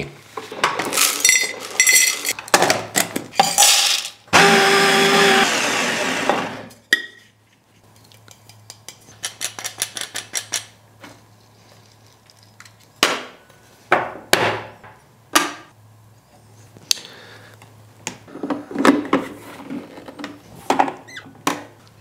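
Espresso puck preparation: a burr grinder runs for a couple of seconds, then a fast ticking run as grounds are stirred, followed by scattered sharp knocks and clicks of tools and the portafilter being handled and locked into the espresso machine's group head.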